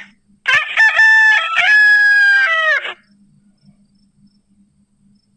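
Rooster crowing once, a cock-a-doodle-doo of about two and a half seconds in a few stepped notes, starting about half a second in.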